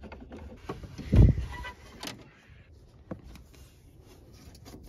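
Scattered clicks and knocks of hand tools and parts being handled while working on a vehicle, with one heavy, low thump about a second in.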